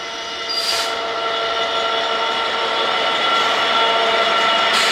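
DB Class 66 diesel locomotive, with its EMD two-stroke V12, running past close by with a steady mechanical whine, growing louder as the cab and engine compartment come alongside. A short hiss comes about half a second in.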